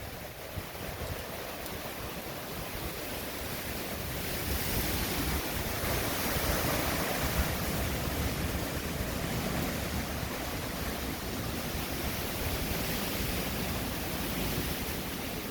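Hurricane winds blowing hard, a steady rushing noise that builds into a stronger gust about four seconds in, then eases a little after about ten seconds.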